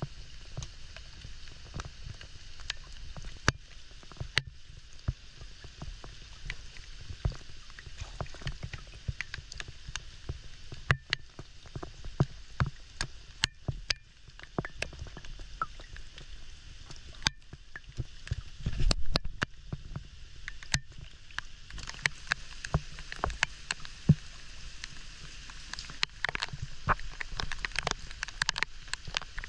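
Rain falling on water as a steady hiss, with many sharp taps and knocks of wood and bamboo against a wooden dugout canoe. A brief low rumble comes a little past halfway, and the rain grows heavier near the end.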